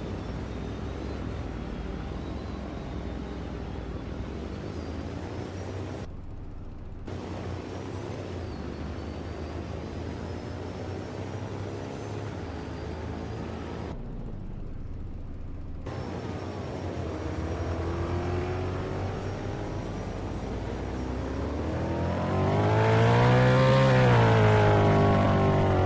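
Steady engine and road noise from the armoured Tornado Intercept Vehicle (TIV 1) as it drives. Near the end the engine note climbs, becomes loudest, then drops back as it accelerates and eases off. The sound cuts out briefly twice.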